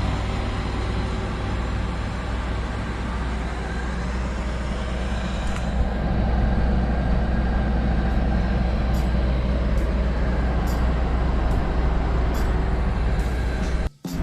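A large diesel engine running steadily with a deep, even hum. The sound drops out abruptly for a moment near the end.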